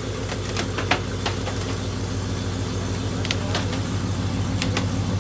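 Chevrolet TrailBlazer SS's cammed factory 6.0-litre V8 with long-tube headers, idling steadily with a deep, even note as it backs slowly out of an enclosed trailer. A few sharp clicks sound over the idle.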